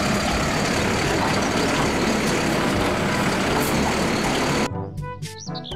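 Mack garbage truck running loud and steady while its automated side-loader arm lifts a wheeled trash cart and tips it into the hopper. About a second before the end the sound cuts off abruptly to music.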